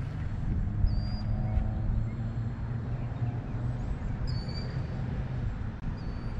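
Wind buffeting the microphone with a low rumble, while a bird gives a short, high whistled chirp three times.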